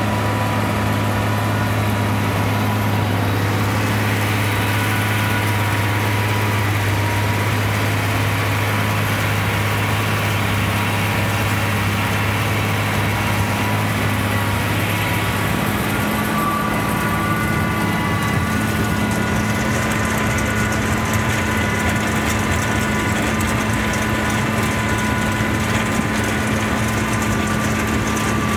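International 1466 tractor's six-cylinder diesel running steadily under PTO load, driving a bag-filling machine, with a steady whine of conveyors and chains as a forage wagon unloads chopped haylage. About halfway through the low drone shifts to a different pitch.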